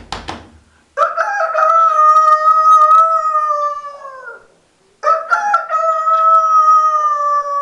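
A man imitating a fighting rooster's crow with his voice: two long crows, each held on one pitch and dropping at the end, the second starting about five seconds in.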